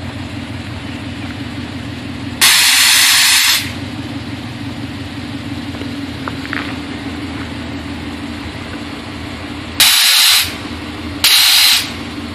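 Ford Mustang's engine idling steadily while its nitrous oxide purge valve fires three loud hissing blasts: one of a little over a second about two seconds in, then two shorter ones near the end.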